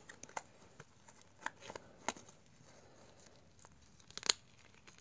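Clear plastic coin wrapping being picked at and pulled open by hand: faint irregular crinkles and small snaps, the loudest about four seconds in.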